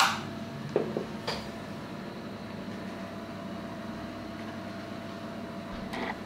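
A steady low hum runs throughout. Footsteps or knocks sound a few times in the first second and a half, and a short squeaky creak comes near the end.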